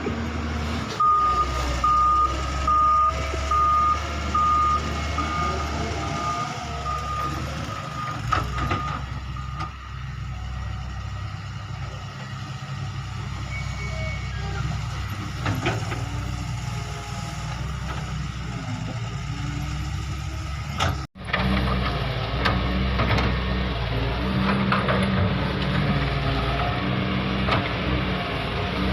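Excavator's travel alarm beeping, a regular series of short beeps at one pitch for several seconds, over the steady running of the machine's engine. The engine sound carries on after an abrupt cut about two-thirds of the way through.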